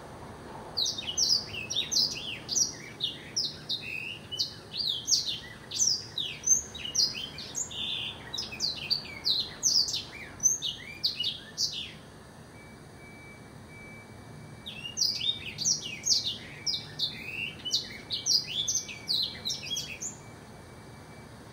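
A caged blackthroat (black-throated canary) singing a fast, twittering song of rapid high notes for about eleven seconds, pausing for about three seconds, then singing again for about five seconds.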